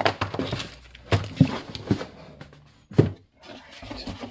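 Cardboard boxes handled: small product boxes pulled out of a cardboard shipping carton and set down on a bench, giving a few dull knocks and scrapes of cardboard, the sharpest about three seconds in.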